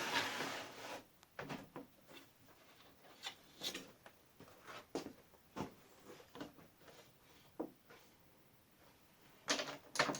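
A short steady whirr that stops about a second in, then scattered light clicks and knocks of tools and parts being handled while a saw platform is fitted and screwed into an aluminium-profile frame, with another brief noisy burst near the end.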